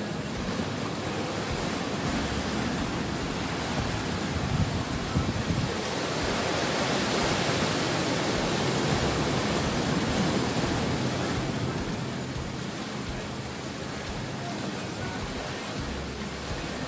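Sea surf washing against a rocky shore, a steady rush of noise that swells louder for a few seconds in the middle.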